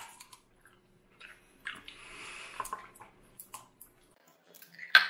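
A child chewing sour candy: soft, wet mouth clicks and squishes, with a short hiss about two seconds in.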